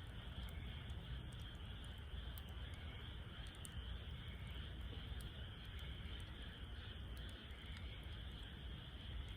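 Wood fire burning in a Snow Peak fire stand, with faint, scattered crackles over a low steady rumble.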